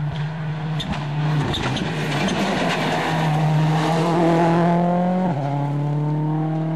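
The Ford Focus WRC rally car's turbocharged four-cylinder engine at full throttle as it passes close by. The revs climb and then drop at two gear changes.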